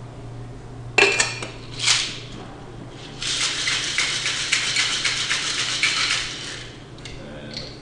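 Ice rattling fast and hard inside a metal cocktail shaker as it is shaken for about three seconds, then stopping. Two sharp clanks come about a second apart before the shaking starts.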